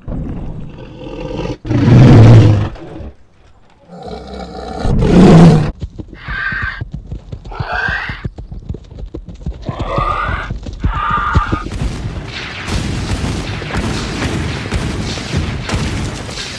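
Dinosaur roar sound effects: two long, loud roars, then four shorter calls that slide upward in pitch. From about twelve seconds in, a dense stretch of rapid gunfire and booms takes over.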